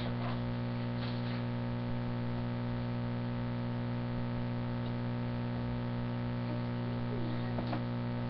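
Steady electrical mains hum, an unchanging low buzz of several stacked tones, picked up through the webcam's microphone.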